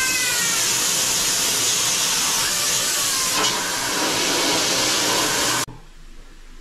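High-pressure sewer jetter blasting water through its hose into a blocked floor drain: a steady loud hiss, with a brief faint falling whistle right at the start. The hiss cuts off suddenly near the end.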